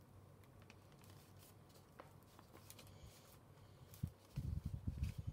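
Glue stick rubbed over folded paper, a faint scraping with small clicks, followed about four seconds in by soft handling thumps and knocks on the desk.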